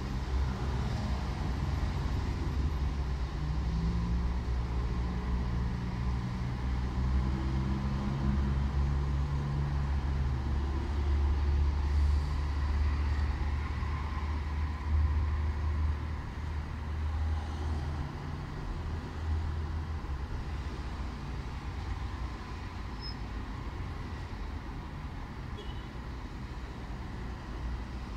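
Road traffic: a low engine rumble, loudest through the first half, then dying down over the last third.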